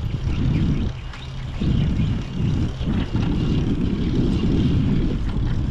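Wind buffeting the microphone of a camera on a moving bicycle: a loud, uneven low rumble that dips briefly about a second in, over the hiss of riding along a paved path.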